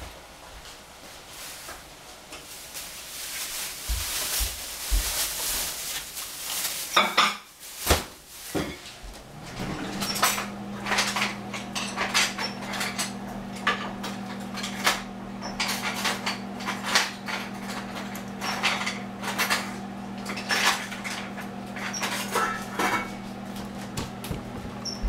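Dishes and utensils clinking and clattering in a kitchen as things are handled and set down. A noise builds over the first few seconds, and about ten seconds in a steady appliance hum starts and runs under the clinks.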